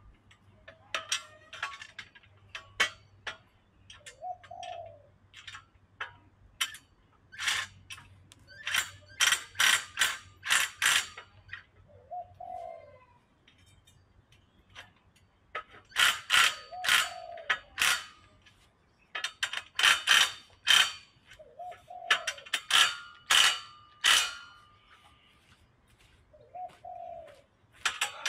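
Loose metal bolts and hardware clinking and rattling in irregular bursts as they are rummaged through by hand, with short pauses between.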